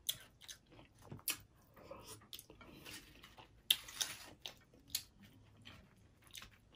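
Close-miked eating of a taco salad made with broken hard taco shells: crisp crunching and chewing, with scattered sharp crackles as the shell pieces are picked at by hand. The crunching is densest about four seconds in.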